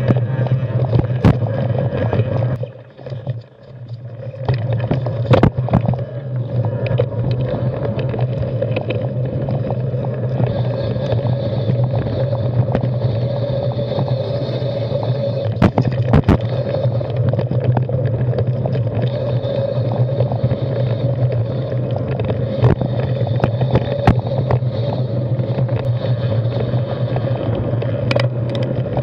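Carbon 6Fattie mountain bike with plus-size tyres rolling over rocky dirt singletrack: a steady rolling drone with frequent clicks and knocks from rocks and bumps. The noise drops briefly about three seconds in.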